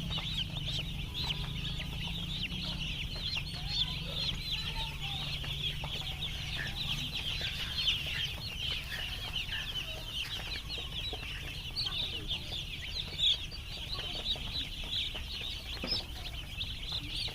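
A large flock of chickens calling together: a dense, steady chorus of many overlapping high-pitched peeps and clucks. A low hum underneath fades out about seven seconds in.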